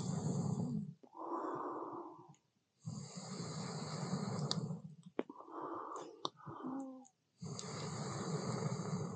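A person blowing long puffs of air onto a smouldering campfire that won't catch: three puffs of about one and a half seconds each, with a breath drawn in between and a few sharp clicks.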